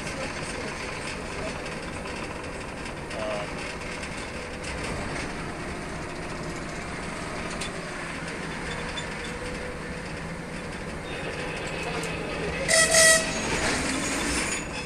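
TGM6V diesel-hydraulic shunting locomotive running along the track, a steady engine and rolling noise. Near the end it gives two short toots of its horn.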